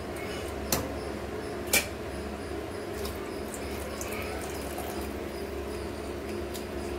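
Two sharp metal clicks about a second apart, a steel ladle knocking against the rim of an aluminium pressure cooker while stirring, with a few fainter ticks later, over a steady low hum.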